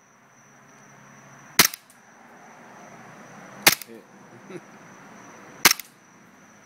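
Three single shots, about two seconds apart, from a VFC Smith & Wesson M&P 9C gas blowback airsoft pistol, each a sharp crack of the gas firing and the slide cycling.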